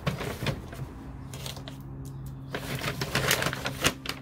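Brown kraft packing paper rustling and crinkling as it is handled: a short burst at the start, then a longer, louder stretch from about two and a half seconds in. A steady low hum runs underneath.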